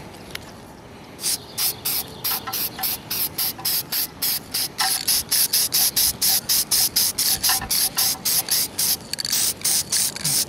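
Aerosol can of flat black spray paint hissing out in short, quick bursts, about four a second, starting about a second in. The bursts are light coats laid over stencils on tacky red paint.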